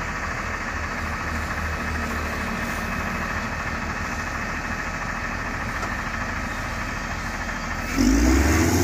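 Diesel engine of a LiuGong 4180D motor grader running steadily while the grader is stuck in soil. Near the end it revs up sharply and louder as the driver puts power on to work the machine free.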